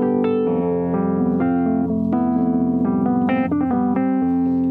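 Piano played with both hands in a rolling left-left-left-right-right-left-right-right pattern, improvising on the white notes in G Mixolydian mode, with notes ringing on and overlapping.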